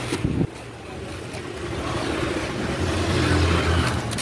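A motor vehicle engine running close by, its low hum growing louder to a peak near the end and then easing off. A brief rustle of plastic wrapping and cardboard comes in the first half second as the box is rummaged.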